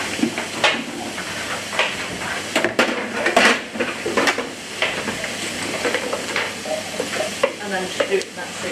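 A metal roasting tray of vegetable cubes being handled on a gas hob and turned with a wooden spoon, giving repeated knocks and scrapes. Under them runs the steady sizzle of onions and peppers frying in a pan.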